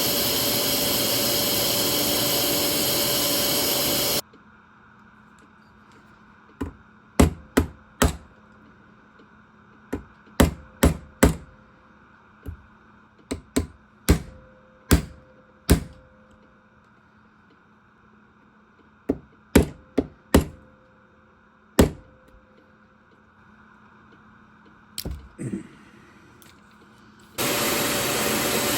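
A power tool whirring steadily cuts off after about four seconds, followed by a run of sharp taps with a short ring, some single and some in quick groups of two or three, typical of hammering on knife parts. The whirring starts again near the end.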